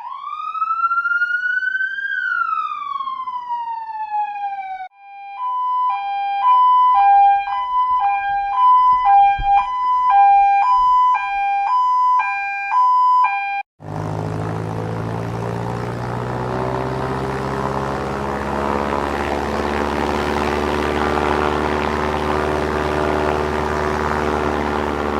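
An emergency-vehicle siren sweeps up once and slowly falls back. It cuts to a two-tone hi-lo siren switching between a high and a low note about twice a second. About halfway through it changes to a steady mechanical drone with a low hum.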